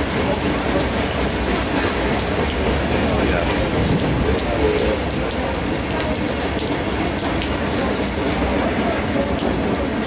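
Steady rain falling on pavement, with scattered raindrop hits close by.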